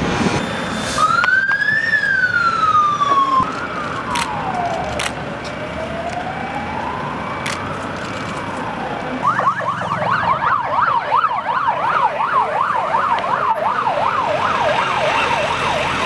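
Police siren, first a slow rising and falling wail, switching about halfway through to a fast yelp of about three rises a second, over road traffic noise.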